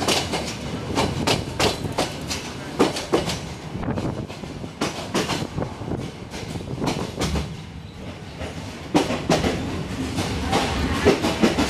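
Moving passenger train heard from inside the carriage: wheels clacking over the rail joints in irregular knocks, with the carriage rattling and rumbling.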